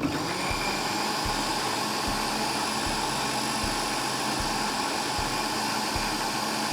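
Electric blender switching on suddenly and running at a steady speed, blending banana and milk into a smoothie.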